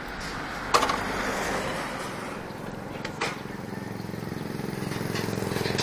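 Kawasaki Ninja ZX-25R's 250 cc inline-four engine idling as the bike comes to a stop in neutral, its note settling and growing a little louder in the second half. A sharp click about a second in and another about three seconds in.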